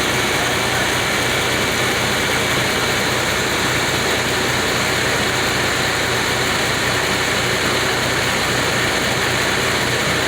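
A heavy engine running at a steady speed, a constant low hum under an even hiss, with no rise or fall throughout.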